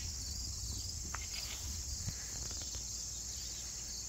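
Steady chorus of crickets, a continuous high shrilling with a low rumble underneath.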